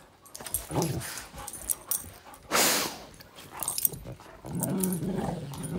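Two dogs play-fighting, with low growls and a loud breathy huff about two and a half seconds in.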